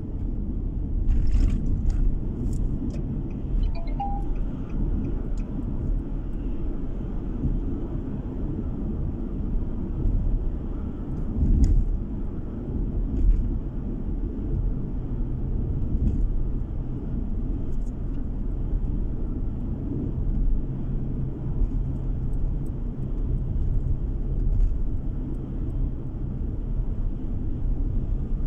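Steady low rumble of a car's road and engine noise heard from inside the cabin while driving, with a faint hum and a few light clicks.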